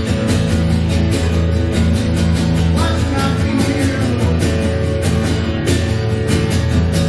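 Live church band music with guitar and a steady drum beat, about two beats a second.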